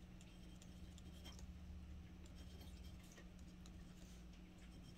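Faint scratching and light ticks of a glass dip pen nib writing on a card swatch tag, over a low steady hum.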